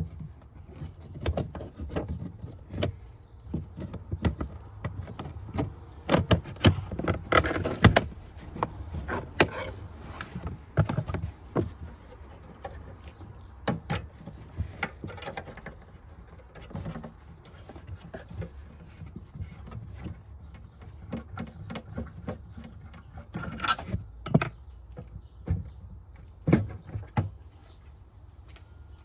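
Irregular clicks, knocks and rattles from hands working an LED taillight assembly and its fasteners into place, busiest about six to ten seconds in and again near the end.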